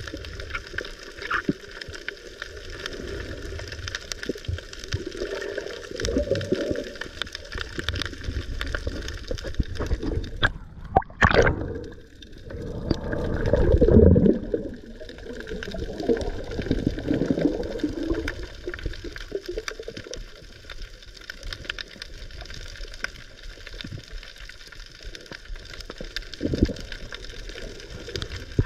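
Underwater ambience picked up by a submerged camera: a steady hiss of water with faint crackling throughout. About halfway through there is a short sharp burst, then a louder rush of moving water and gurgling that swells and fades.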